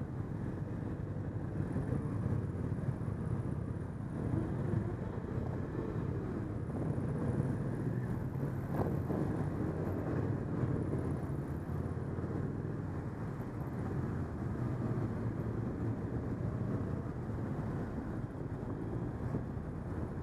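Motorcycle engine running steadily at low town speed, heard from a camera mounted on the bike: a continuous low rumble.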